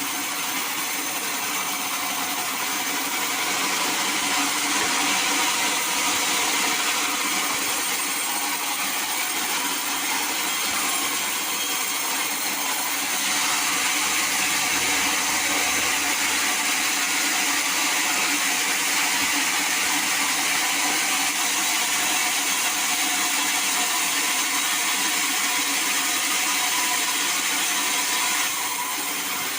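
Sawmill saw running steadily through wood, with a continuous high whine and rasp. It grows louder about four seconds in and eases off shortly before the end.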